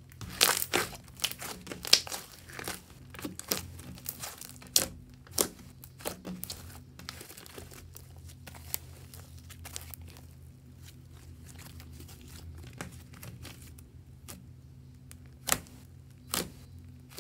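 Pink slime being squeezed in a clear plastic piping bag, then stretched and kneaded by hand: a run of sticky crackles, pops and crinkles, densest in the first few seconds and sparser after, with two sharp pops near the end. A faint steady low hum runs underneath.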